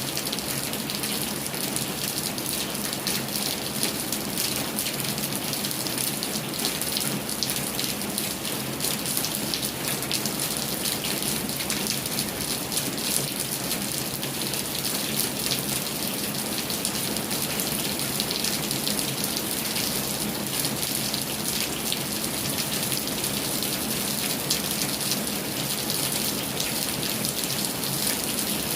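Heavy rain falling steadily, a dense even hiss of many drops pattering on surfaces.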